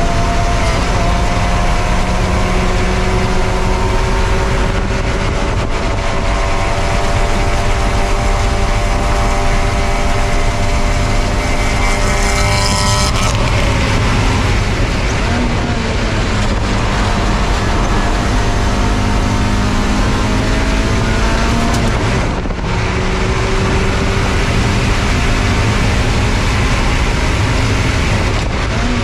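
Spec Miata race car's four-cylinder engine under hard acceleration, heard from on board: its pitch climbs slowly, drops sharply about 13 seconds in, dips briefly again about 22 seconds in, then climbs once more, over steady road and wind noise.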